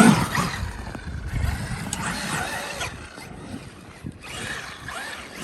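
Traxxas X-Maxx RC monster truck's electric motor whining up and down in pitch as it is driven hard through snow, with a loud burst of throttle at the start, a quieter stretch partway through, and a rise again near the end.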